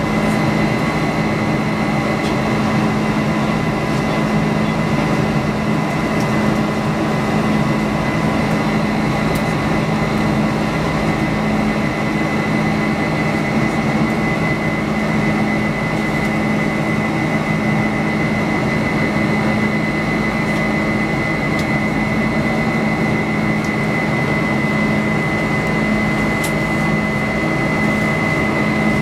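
Steady cabin noise of a Boeing 747-400 in its climb after takeoff, heard inside the cabin: its Pratt & Whitney PW4056 turbofans at climb power give an even drone with a steady low hum and a steady high whine.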